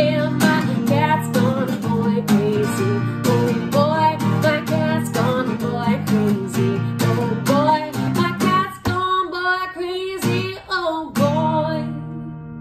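A woman singing to her own acoustic guitar, strumming chords. Near the end the strumming stops and the last chord rings out.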